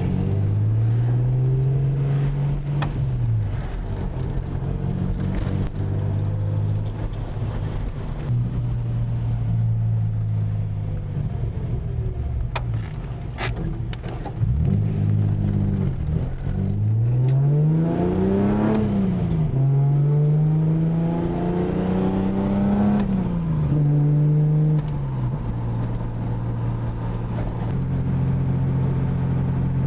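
Datsun 280ZX's 2.8-litre straight-six engine running on a test drive with a freshly rebuilt cylinder head. Its pitch climbs as the car accelerates and drops at each gear change, several times over, with good throttle response.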